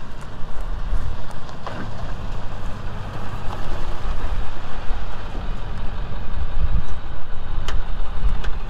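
A tow truck's 7.3 diesel engine running as the truck backs slowly up a gravel road and comes to a stop.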